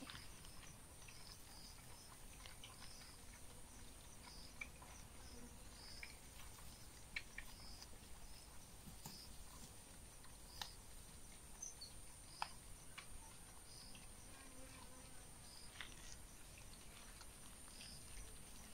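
Faint outdoor ambience: a steady high insect drone, with a short high chirp repeating about every one and a half seconds and a few scattered faint ticks.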